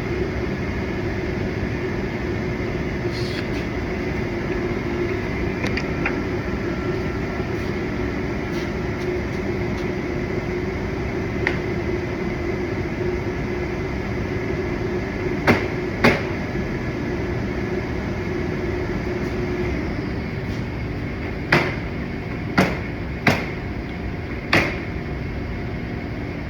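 Steady background hum with a few sharp clicks of plastic bumper parts being fitted and snapped together: two clicks a little past halfway, then four more in quick succession near the end.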